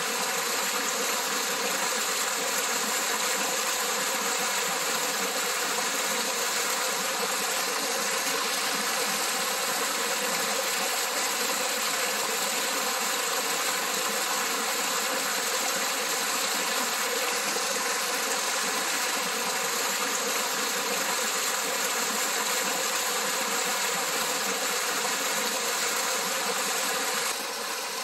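A small waterfall, about four feet high, spilling over rocks into a pool: a steady rush of water that drops slightly in level just before the end.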